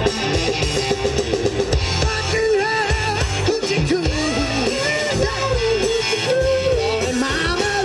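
Live rock band playing: electric guitars, bass guitar and drum kit, with a melody line bending up and down in pitch over the steady band.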